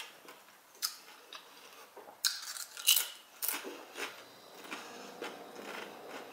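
Close-up crunching and chewing of a fried tortilla chip: a few sharp, sudden crunches, the loudest cluster a little past the middle, with softer chewing between.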